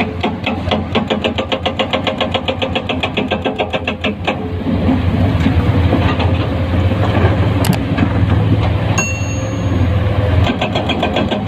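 Komatsu PC210-10 excavator's diesel engine running under load with a steady low rumble, a fast regular clicking over it for the first four seconds and again near the end. A brief high tone sounds about nine seconds in.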